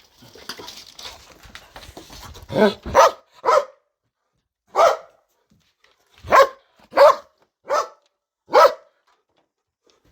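Belgian Malinois barking loudly: eight sharp single barks at uneven intervals, starting after about two seconds of faint scuffling noise.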